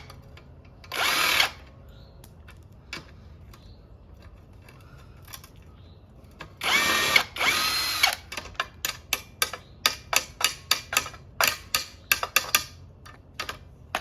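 Cordless impact driver run in bursts on rusted bolts and nuts. There is a short burst about a second in, then two longer runs with a rising motor whine around seven seconds, then a quick string of short trigger pulses, about three a second.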